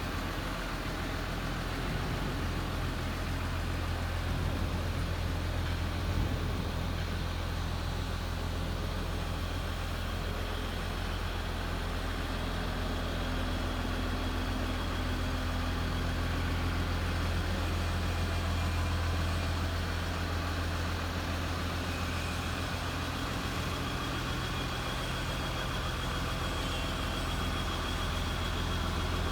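Cummins diesel engine of a DR-90 pile-driving rig running steadily, a deep even drone with no change in speed. A faint high whine comes in during the later part.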